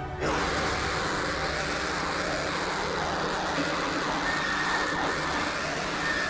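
A loud, dense, noisy roar from a blackened deathcore music video's soundtrack cuts in abruptly, with a thin steady high tone joining about four seconds in.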